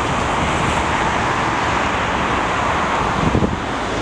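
Steady city street traffic noise: a constant wash of passing cars with a low rumble underneath.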